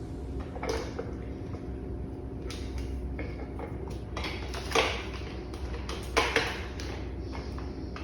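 Hard plastic parts of a toy slime-making kit being handled and twisted together, giving a few sharp clicks and knocks, the loudest about five and six seconds in.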